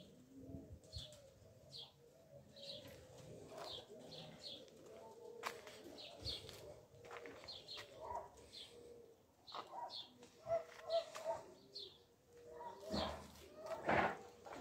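Small birds chirping again and again, with a dove cooing now and then; something louder sounds about a second before the end.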